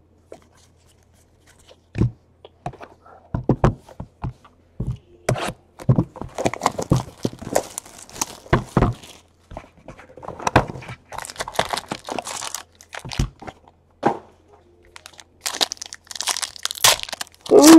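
Foil wrapper of a Panini Elite Draft Picks football card pack being torn open and crinkled in the hands, in short crackly bouts, after a few light taps of cards.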